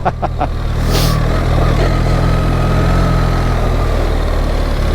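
BMW R 1300 GS boxer-twin engine running steadily at low revs while the motorcycle is ridden up a dirt road, with a short hiss about a second in.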